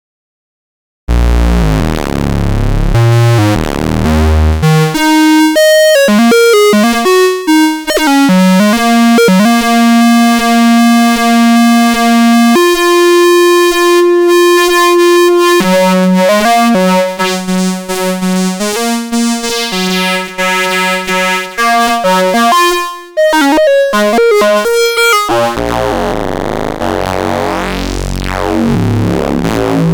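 Ad-vantage 03m monophonic semi-modular analog synthesizer playing, starting after a second of silence: a low bass pattern, then a line of single notes with one note held for about three seconds in the middle. Near the end it changes to a dense, buzzy sweeping tone over a low throb.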